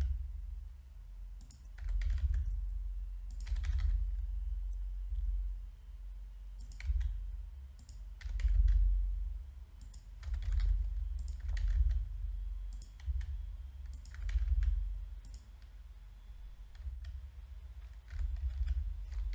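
Scattered computer keyboard key presses and mouse clicks, a few short clicks at a time with gaps between, over a low rumble that swells and fades.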